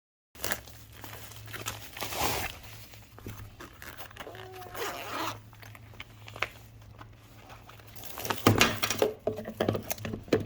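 Plastic packaging rustling and crinkling as it is handled and torn open, in irregular bursts that get louder near the end, over a steady low hum.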